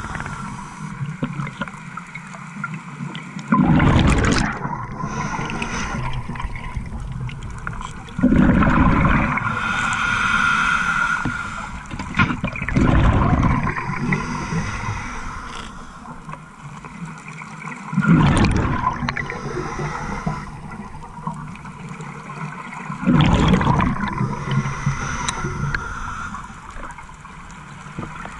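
Scuba diver breathing underwater through a regulator: five loud bubbling exhalations, about one every five seconds, with quieter breathing between them.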